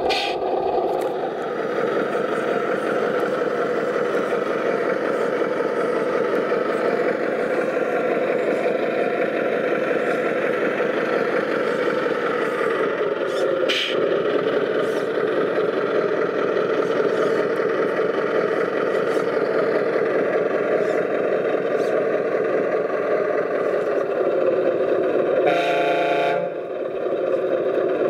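Radio-controlled model trucks and construction machines running steadily. A horn sounds once for about a second near the end.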